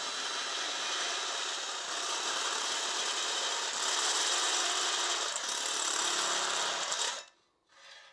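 Handheld power drill boring an oversize hole through a sheet-metal engine cooling tin. It runs steadily, then stops about seven seconds in.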